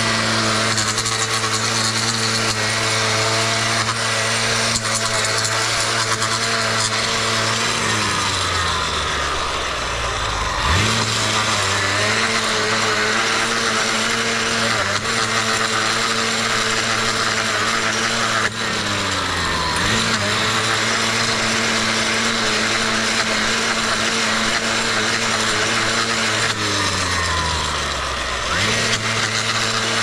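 Stick edger running with its spinning blade cutting a sidewalk and driveway edge: a steady motor hum with gritty scraping over it. Three times the motor slows down and then quickly speeds back up, around 8 to 10 seconds in, near 19 seconds and near 28 seconds.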